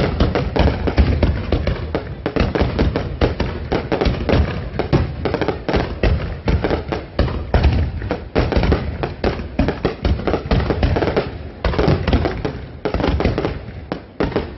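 Fireworks bursting and crackling in a dense, continuous barrage of many bangs a second, easing briefly near the end.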